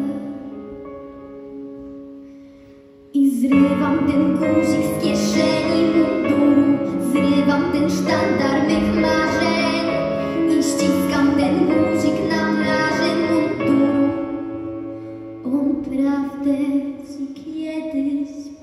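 A girl singing a slow patriotic song into a microphone over instrumental accompaniment. The opening notes fade away, then the music comes back in loudly about three seconds in and carries on, easing down near the end.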